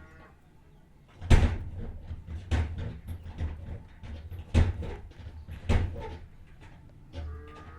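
A run of irregular sharp knocks and clatters. The four loudest come one to two seconds apart, each with a dull thump beneath it.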